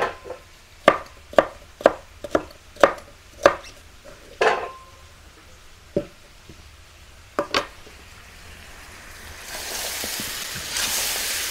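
Kitchen knife chopping carrots into large chunks on a wooden cutting board: about nine sharp, irregular knocks. Near the end, meat and onions start sizzling in a kazan while a spatula stirs them, a steady hiss that grows louder.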